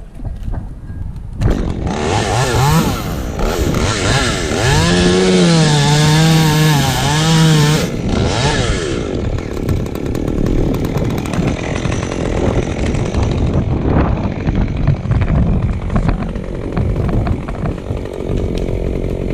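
Chainsaw engine revving up about a second and a half in, then cutting wood from about 5 to 8 seconds, its pitch dipping and recovering under load, before dropping back to a lower, rougher running sound.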